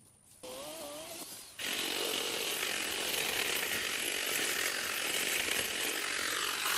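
A power cutting tool for clearing brush comes in about half a second in with a wavering, slightly rising pitch, then runs loud and steady from about a second and a half in.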